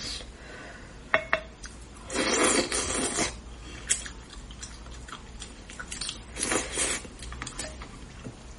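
Close-miked eating of braised tilapia: wet chewing and slurping mouth noises in two longer bursts, with a sharp clink about a second in and small clicks of tableware in between.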